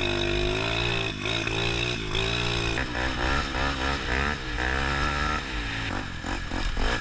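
Off-road engines revving up and easing off while riding over rough ground: first a pit bike's single-cylinder engine, then, about three seconds in, a Polaris Predator quad's.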